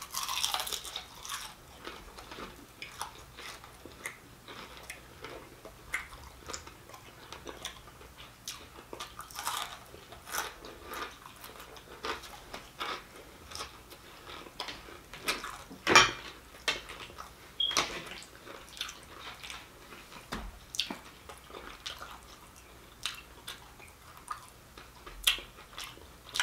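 Close-miked chewing of fried whiting: a string of short mouth clicks and smacks, with one sharper click about two-thirds of the way through.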